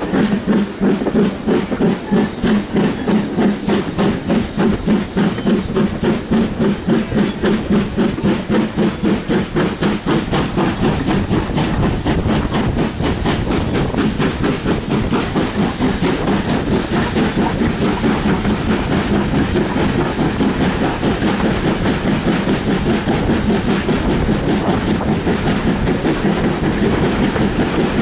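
BR Standard Class 4 2-6-4 tank engine 80002 hauling its train with a steady, rhythmic chuffing exhaust, together with the carriage wheels clattering over the rail joints. The beats grow quicker and less distinct about ten seconds in.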